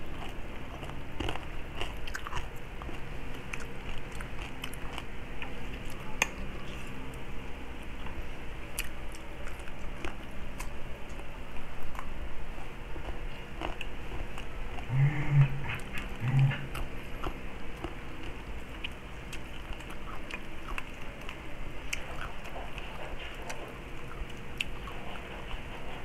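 Chewing and biting on crispy deep-fried pork leg (crispy pata), with many small wet mouth clicks and some crunching of the fried skin. Two short low hums sound about halfway through.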